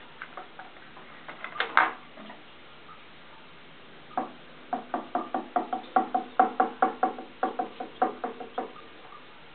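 A run of light, quick taps or knocks on a hard surface, about three a second for some four seconds, after a few scattered clicks and a short louder cluster near two seconds in.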